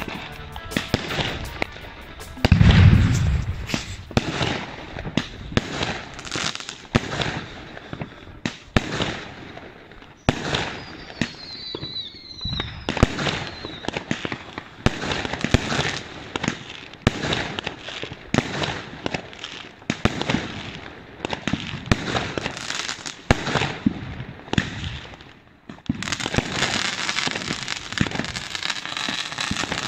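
Fireworks going off: rockets and firecrackers banging and crackling in quick, irregular succession. The loudest is a deep boom about three seconds in, and a short whistle slides in pitch around the middle.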